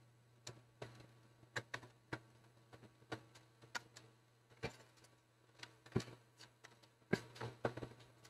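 Scattered, irregular light clicks and taps of plastic laptop parts being handled by hand during disassembly, over a faint steady low hum.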